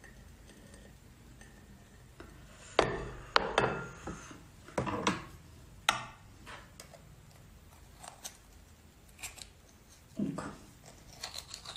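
Tableware clicking and knocking: a glass cup and a metal utensil tapping against a plate and an abalone shell, in about a dozen irregular sharp clicks and scrapes. The loudest come a few seconds in. Near the end the utensil is prying at the raw abalone in its shell.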